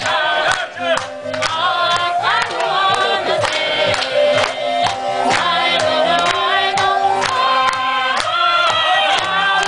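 A group of voices singing a song in long, held notes over a steady percussive beat.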